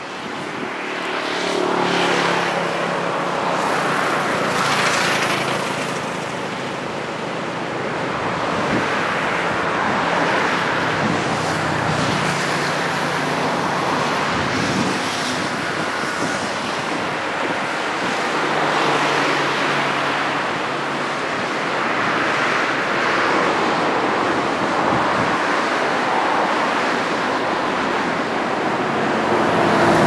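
Continuous rushing of surf and wind on the microphone, swelling and fading every few seconds, with car engines passing now and then.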